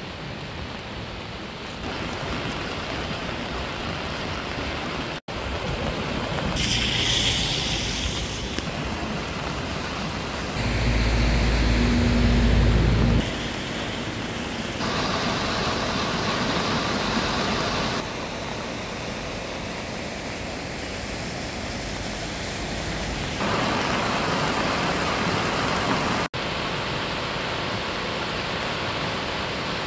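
Steady rush of a city stream in flood, fast rain-swollen water running high between its banks and over a weir. The noise changes abruptly a few times, with a louder, deeper rumble for a couple of seconds about eleven seconds in.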